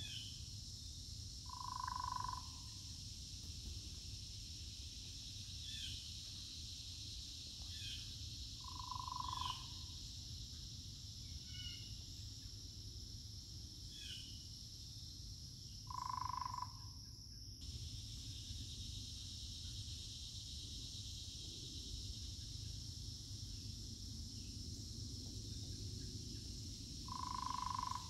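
Forest ambience: a steady high insect chorus over a low rumble, with a short, clear, held note repeating four times, roughly seven seconds apart, and a few brief bird chirps in between.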